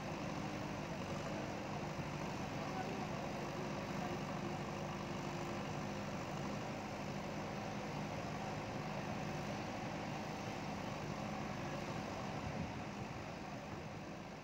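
JCB backhoe loader's diesel engine running steadily, fading out near the end.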